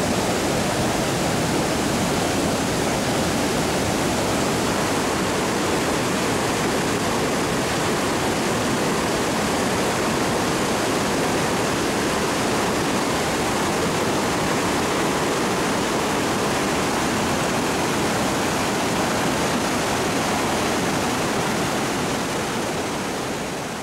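Floodwaters of a swollen creek rushing through churning rapids, a steady, even rush of water that begins to fade near the end.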